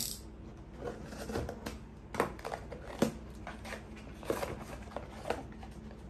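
Utility knife slicing through the packing tape of a cardboard parcel, then cardboard flaps being pulled open and the box handled, with scattered scraping and several sharp clicks.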